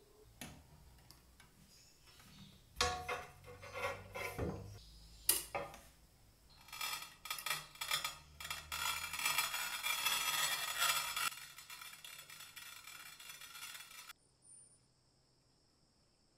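Metal-on-ceramic clunks and clinks as the cast-iron circular tile cutter is set on a glazed tile, then a few seconds of gritty scraping as its cutting tip is turned around to score a circle in the tile surface, tapering off and stopping.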